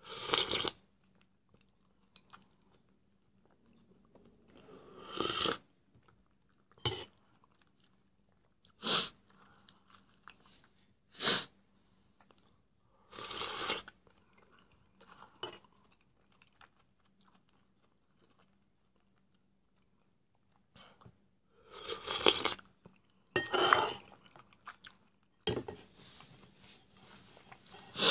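Close-up eating sounds of a person taking spoonfuls of soup and chewing them with bread, in about ten short bursts separated by quiet gaps, with a longer pause about halfway through.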